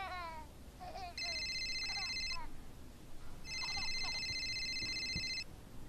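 Mobile phone ringing with an electronic trilling ringtone: two rings, the second longer.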